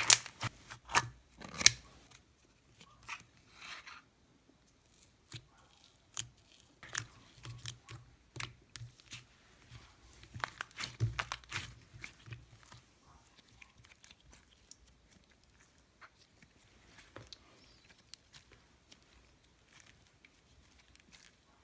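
Slime being squished, pressed and stretched by hand, giving irregular sharp clicks, pops and crackles. The clicks come thickest in the first two seconds and again around ten to twelve seconds in, with sparser, quieter stretches between.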